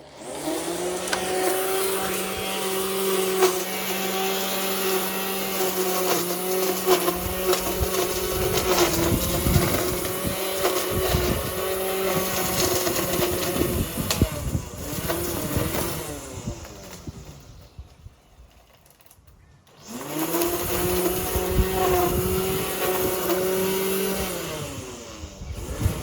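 Lawn mower motor running at a steady pitch, then switched off about 14 s in, its pitch falling as it winds down. It starts again about 20 s in and winds down once more near the end.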